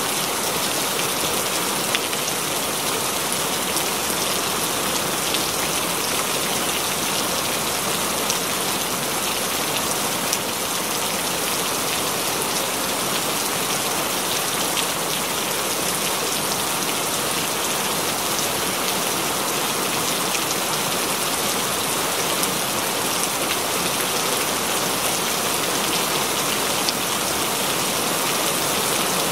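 Steady rain: an even, dense hiss with scattered sharper drop ticks.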